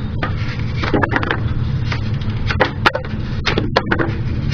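A knife whittling in several short, sharp scraping strokes, over a steady low hum.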